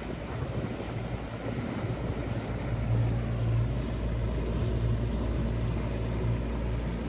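Bass boat running across the water: a steady engine hum with wind and water rushing past the microphone.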